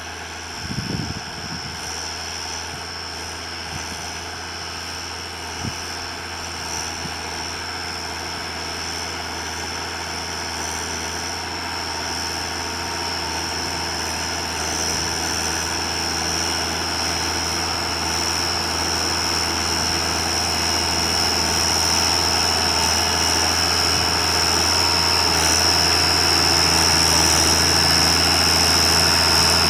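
Case International 956XL tractor's diesel engine working under load while pulling a plough, growing steadily louder as it comes closer, with a steady high turbo whistle above the engine note.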